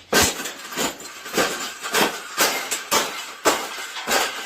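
A quick run of sharp knocks or crunches, about two a second, from something being worked by hand.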